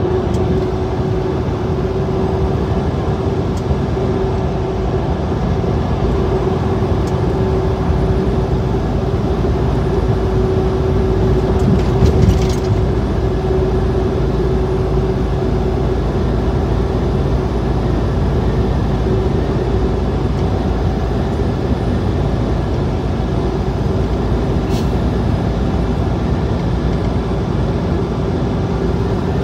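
Semi-truck running at highway speed, heard from inside the cab: steady engine and tyre-on-road noise with a constant humming tone under it. There is a brief thump about twelve seconds in.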